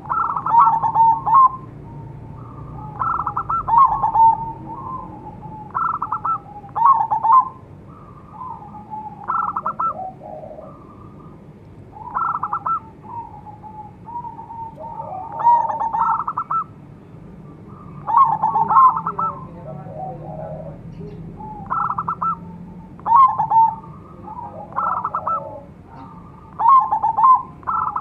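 Crossbred Bangkok zebra dove (perkutut) cooing: about ten loud trilled, rattling coo phrases, one every three seconds or so, with fainter, lower coos between some of them from a second dove answering.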